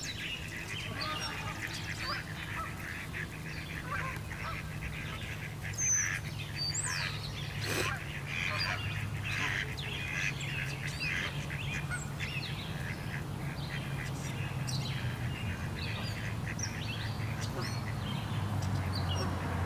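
Birds calling: many short, overlapping calls over a steady low hum.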